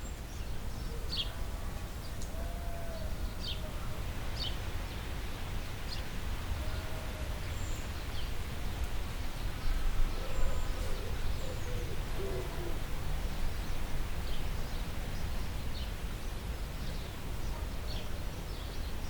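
Birds calling: short high chirps repeating every second or so, and a few low hooting calls, over a steady low rumble.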